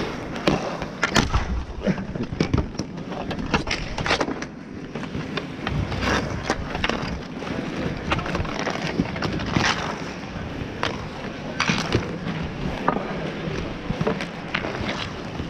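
Roller hockey play on asphalt: inline skate wheels rolling on the pavement, with many sharp clacks of hockey sticks on the ball and the ground scattered throughout.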